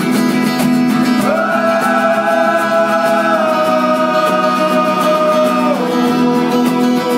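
Live acoustic band music: strummed acoustic guitars with a voice holding one long sung note from about a second in, stepping down once in pitch midway and ending about six seconds in.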